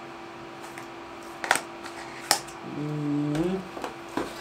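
Cardboard drone packaging being handled, with two sharp knocks about a second and a half and two seconds in as a small white box is set down on the table, then a short hummed "mm" from the man and a few light clicks as he reaches back into the box. A faint steady hum runs underneath.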